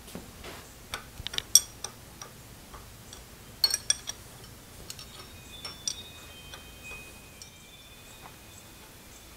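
Steel hand tools, a hex key and a wrench, clinking against the cast-iron table of a 1950 Wells Index Model 40 milling machine with a bright metallic ring. A run of sharp clicks starts about a second in, with the loudest clink near a second and a half. Another quick cluster comes near four seconds, then lighter ticks.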